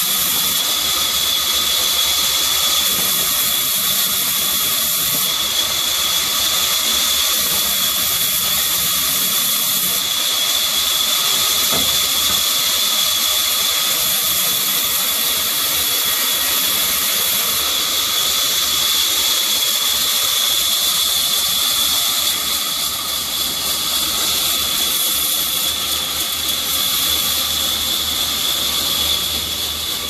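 Large sawmill band saw running and cutting through mahogany timber: a steady high-pitched whine over loud, continuous mechanical noise, a little quieter in the last several seconds.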